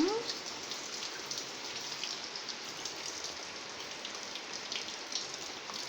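Warm water pouring steadily into a container: an even splashing hiss with small scattered drips and splashes.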